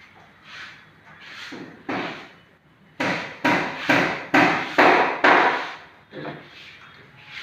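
Hammer striking wood: a few lighter knocks, then a steady run of six hard blows at about two a second, then one lighter knock.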